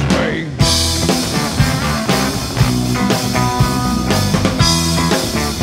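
Live rock band playing an instrumental passage: electric guitar over a drum kit. It briefly thins out right at the start with a short falling glide, then the full band comes back in.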